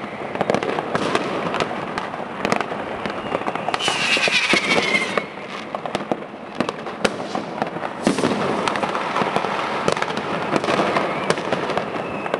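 A continuous barrage of fireworks and firecrackers, with many sharp bangs and cracks overlapping. About four seconds in, a whistling firework glides down in pitch.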